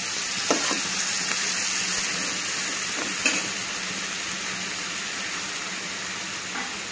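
Minced clams with onion and green chilli sizzling steadily in a nonstick frying pan on a low flame, with a spatula scraping and tapping the pan about half a second in and again about three seconds in.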